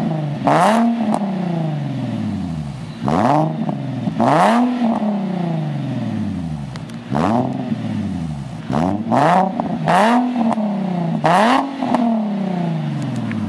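Infiniti G35 S's 3.5-litre V6 revved in quick blips while standing, through a custom stainless-steel dual sport exhaust. About eight revs, each rising sharply in pitch and falling back to idle.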